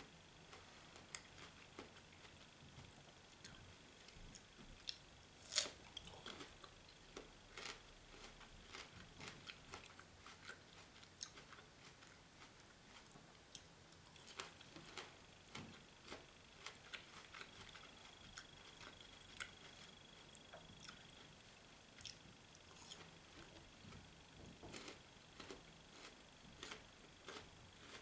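Faint chewing and biting of food, heard as scattered soft clicks and small crunches at irregular intervals, with one louder click about five and a half seconds in.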